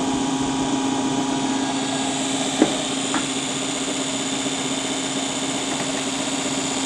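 Early-style rotating-armature AC generator running as a DC motor off a small power supply, spinning steadily with an even hum. A brief click about two and a half seconds in, and a fainter one just after.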